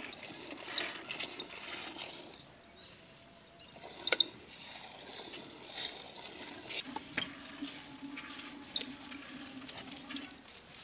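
Milk squirting in spurts into a steel bowl as a water buffalo is milked by hand. A sharp knock about four seconds in is the loudest sound, and a low steady hum comes in during the second half.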